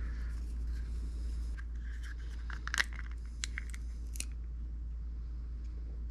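The small plastic shell of a Sena SMH5 Bluetooth headset being opened by hand: light scraping and a few sharp plastic clicks and snaps as the case halves come apart, the loudest snap about three seconds in. A low steady hum runs underneath.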